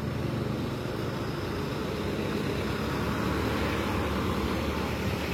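Steady low rumble of a tour bus's diesel engine idling close by.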